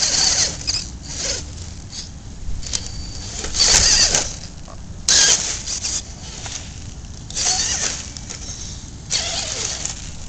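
Radio-controlled rock crawler's electric motor and geartrain whirring in short bursts as the throttle is blipped, about five bursts of a second or less each, over a steady low rumble.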